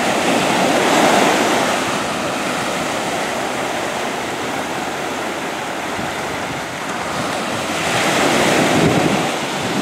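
Ocean surf washing on the shore, with wind buffeting the microphone; the rush swells about a second in and again near the end.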